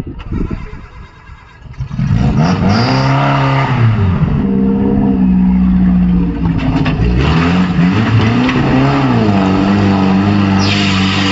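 Off-road vehicle's engine revving hard, its pitch swinging up and down several times and held high in between. Before it comes in about two seconds in, there are low, uneven knocks. A hiss joins near the end.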